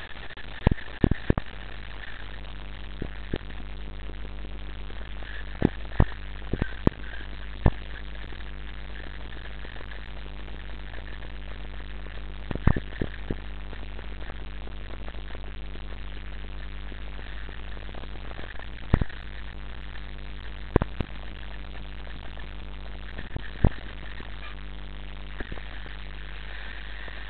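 Steady noise with a low rumble from a bike riding over a rough grass and dirt path, broken every few seconds by sharp knocks and rattles as the bike and its mounted action camera jolt over bumps.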